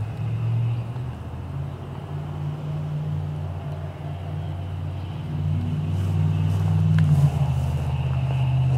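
A motor vehicle's engine running steadily at low revs, a low hum whose pitch shifts slightly and which grows louder from about halfway through.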